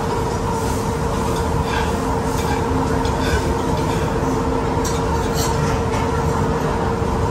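A steady rumbling hum holding one constant tone, with a few light clinks of forks and knives on the steak plates.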